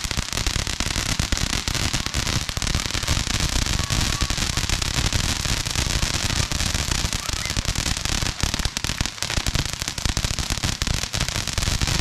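Ground fountain firework spraying sparks: a continuous hiss thick with rapid crackling.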